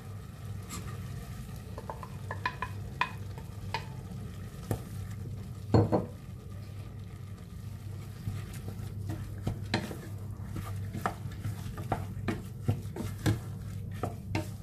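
A wooden spatula stirring and scraping a thick coconut and sugar-syrup filling in a stainless steel saucepan as it cooks down, with many light knocks against the pot and one louder knock about six seconds in. A steady low hum runs underneath.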